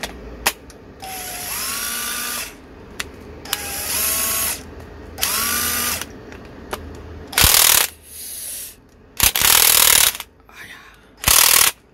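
National 12 V cordless impact driver run in several short trigger bursts on a freshly rebuilt battery pack. Each early burst spins up with a rising whine. The later bursts are louder and rougher.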